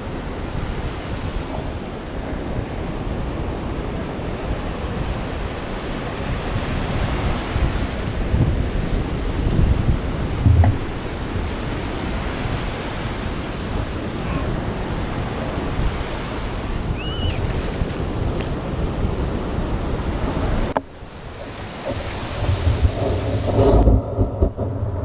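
Small surf waves washing around the ankles in shallow water, with wind buffeting the microphone. About 21 seconds in the sound turns suddenly dull and muffled, followed by low rumbling thumps as the camera dips under the water while a sand scoop digs into the bottom.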